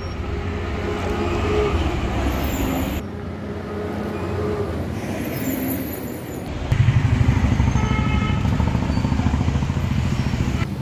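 Heavy truck's diesel engine idling, a steady low rumble that gets louder and more pulsing about seven seconds in.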